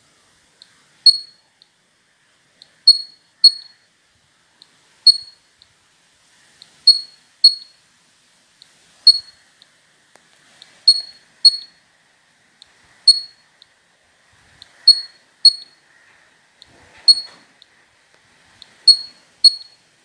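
Piezo buzzer driven by an Arduino Uno, switched on and off by the sketch, giving short, high-pitched ticks that each ring briefly. They come in a repeating pattern: a single tick, then a pair about half a second apart, roughly every two seconds.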